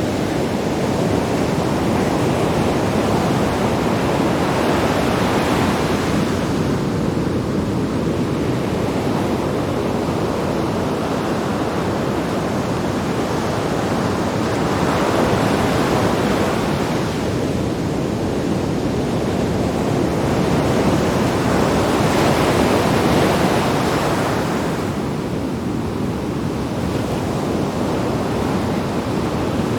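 Sea waves breaking on rocks: a continuous rush of surf that swells three times, each surge lasting several seconds before it eases back.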